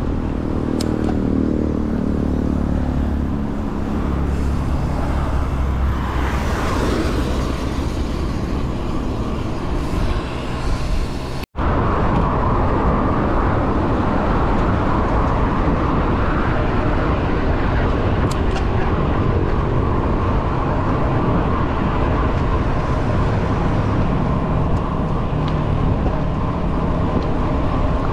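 A road vehicle driving, with engine and road noise. The engine's pitch falls over the first few seconds. The sound cuts out briefly about eleven seconds in, then returns as steady road noise.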